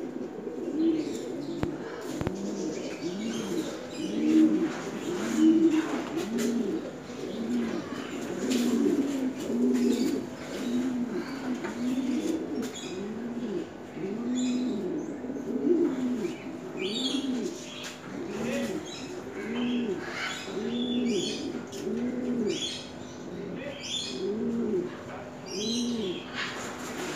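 Caged pouter pigeons cooing over and over, several birds overlapping, each coo a low rising-and-falling note about once a second. Short high chirps and clicks join in over the second half.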